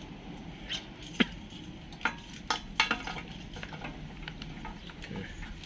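Scattered light clicks and taps of hands handling a grass cutter's ignition coil and its wires on the engine, with a sharp click about a second in and a quick run of clicks a second later.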